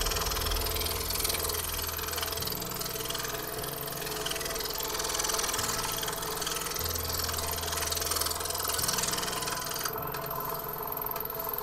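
Scroll saw running, its reciprocating blade cutting through a wooden jigsaw puzzle board with a steady mechanical chatter.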